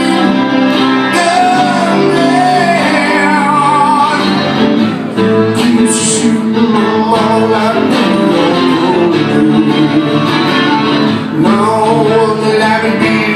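Live acoustic duo: two acoustic guitars playing together while a man sings into a microphone.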